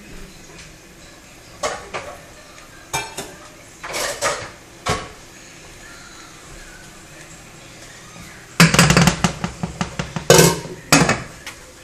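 Cookware clatter: a few scattered knocks, then from about eight and a half seconds in a dense run of knocking and clinking as a wooden spoon stirs and bangs in a metal cooking pot of tomatillo sauce and a glass pot lid is handled.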